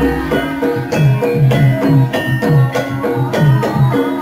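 Traditional Javanese dance music: a steady beat of struck, pitched percussion, about three notes a second, over a low melodic line.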